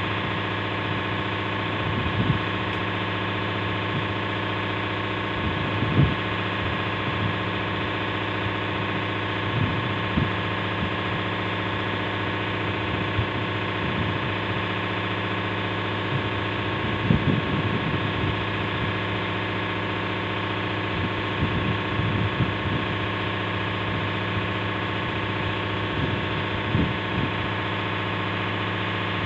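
Fishing boat's engine running steadily, a constant drone, with a few short low knocks as a hand line is hauled in.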